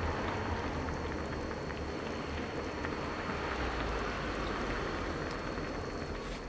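Pot of pork miso soup with udon simmering over a compact portable gas burner: steady bubbling and hiss with a low rumble of flame underneath.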